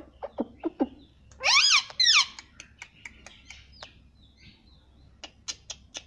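Rose-ringed parakeet (Indian ringneck) calling: a few short, quick downward squeaks, then two loud calls about a second and a half in that rise and fall in pitch, followed by scattered sharp clicks.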